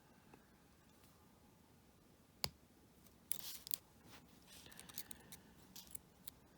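Lock pick and tension wrench working the pins of a small lock: faint metallic scraping and clicking, with one sharp click about two and a half seconds in and a few short bursts of scraping after it.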